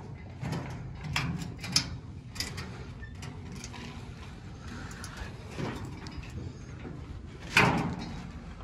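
Footsteps and knocks on perforated steel scaffold planks, with the metal scaffolding clanking and rattling, irregular steps about every half second and one louder clank near the end.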